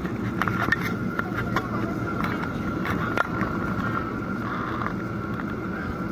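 Jet airliner cabin noise on final approach with flaps extended: a steady rumble of engines and airflow with a steady whine above it, and a few short clicks and rattles.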